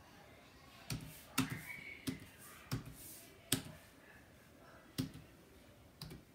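Computer keyboard keys tapped one at a time, about seven sharp clicks at uneven intervals, as a title is typed slowly.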